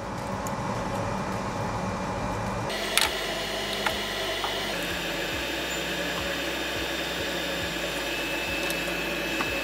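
Steady fan-like whir from workbench equipment. A light click comes about three seconds in and a fainter one a second later, as the power supply board and its new fuse are handled.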